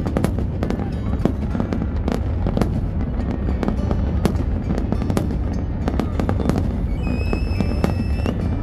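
Large aerial fireworks display: a dense, continuous barrage of shell bursts and crackles over a low rumble.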